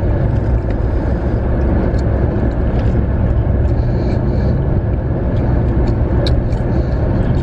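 Steady low rumble of a car, heard from inside its cabin, with a few faint clicks over it.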